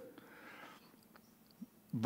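A pause in a man's speech: faint room tone, with the tail of his last word dying away in the first moment.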